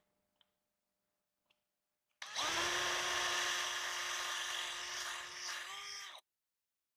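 DeWalt 20V cordless drill running steadily as its bit bores into the metal body of a toy tractor, starting about two seconds in and lasting about four seconds. The whine rises slightly in pitch just before it cuts off.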